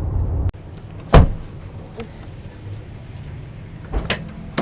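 Low, steady rumble of a car driving, cut off abruptly about half a second in. Then one loud thump about a second in, followed by a few lighter knocks.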